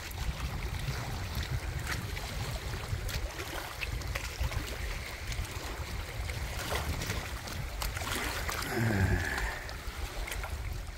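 Wind rumbling on the microphone over small waves washing at the water's edge, with a few faint clicks. A man makes a short low vocal sound about nine seconds in.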